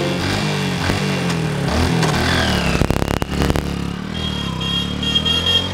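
Small commuter motorcycle's engine revving as it pulls away carrying three riders, its pitch rising and falling.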